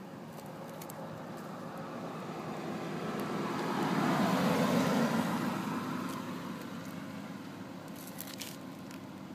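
A road vehicle driving past: its road noise rises to a peak about halfway through and then fades away.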